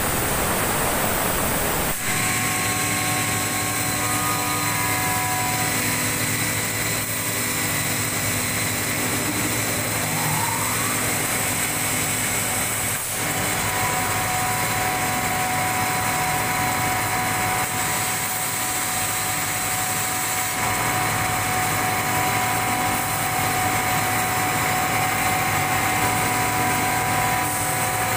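Steady machine hum with several constant whining tones over a dense rush of noise. It is noisier in the first couple of seconds, then settles into an even drone.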